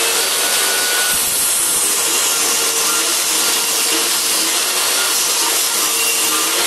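DeWalt table saw running with its blade ripping a pine board along the fence: a loud, steady mix of motor hum and cutting noise throughout.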